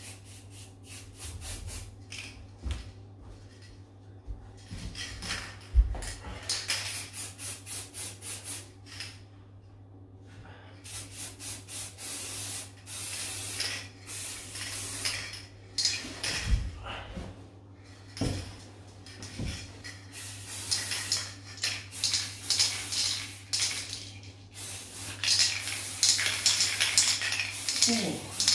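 Aerosol spray-paint can hissing in repeated bursts, some short and quick, others held for a few seconds, with a few soft knocks in the middle.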